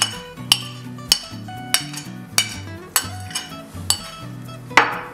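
Metal spoon clinking and scraping against glass bowls as diced boiled egg is scraped out of one bowl into another, over background music with a steady beat.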